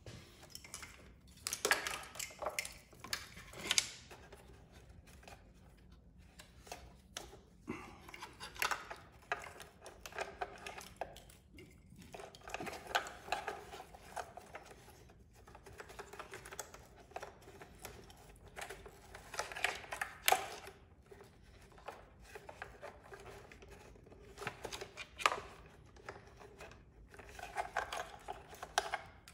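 Hands working a braided wiring loom and its plastic connectors into a tight space around a motorcycle's battery and fuse box: irregular rustling and scraping with small plastic clicks, in bursts with short pauses.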